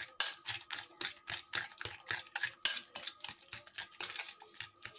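Metal utensil beating a wet batter of eggs and mashed sweet potato in a glass bowl: quick clicks of metal against glass, about four to five strokes a second.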